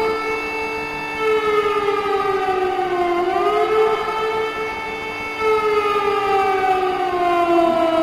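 Air-raid (civil defence) siren wailing, a warning of attack from the sky: its pitch rises quickly a little after three seconds in, then sinks slowly, over a steady lower tone.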